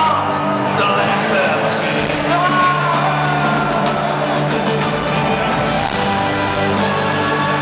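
Live pop band playing, with sustained chords and a voice gliding over them, heard from the stands with shouts from the crowd mixed in.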